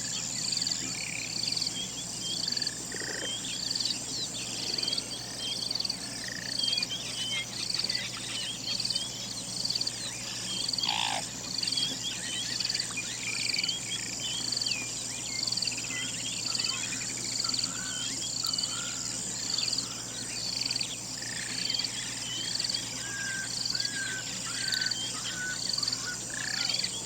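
Outdoor insect and bird ambience: a steady high insect drone with a short chirp repeating just under once a second, and many scattered bird chirps.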